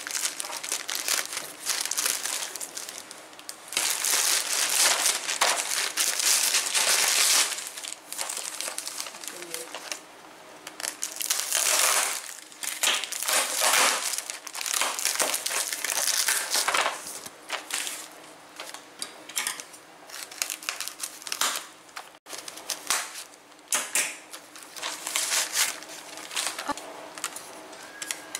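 Plastic packaging crinkling and rustling in irregular bursts as hands tear open a grey poly mailer bag and unwrap a clear plastic bag, loudest in the first half, with lighter crackles near the end.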